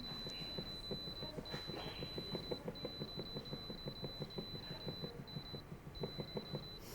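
An air fryer's touch control panel beeping, with rapid soft ticks and a faint, steady high tone that breaks off briefly now and then, as the timer setting is stepped through.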